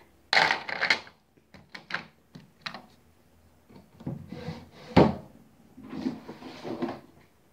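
Close handling noise from fingers rubbing and tapping on the recording device near its microphone, with scattered clicks and one sharp knock about five seconds in.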